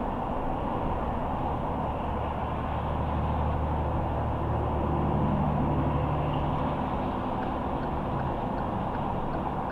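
Car driving on the highway: steady tyre and road noise, with a low engine hum that swells in the middle and fades again.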